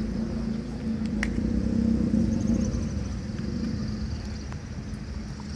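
A steady low engine-like rumble with a hum, swelling a little about two seconds in and then easing off.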